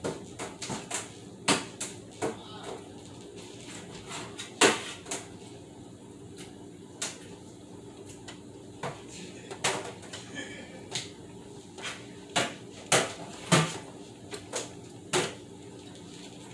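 Irregular knocks and clatters of dishes and meat being handled at a kitchen sink, some sharp and loud, over a steady low hum.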